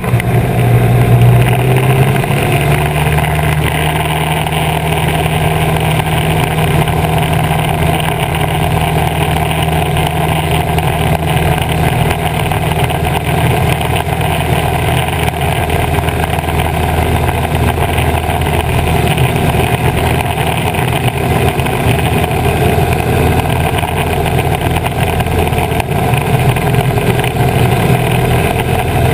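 Piper PA-18 Super Cub floatplane's piston engine and propeller at takeoff power, a steady drone as the plane runs off the water and climbs. Wind rushes over the microphone mounted outside on the float.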